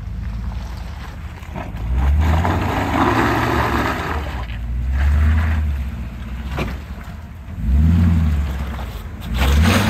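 Toyota Tundra's 5.7-litre V8 with an aftermarket exhaust rumbling at low speed, swelling in several short throttle surges as the truck crawls over deep muddy ruts. Tyres hiss and scrape through the mud, and there is one sharp knock about two-thirds of the way through.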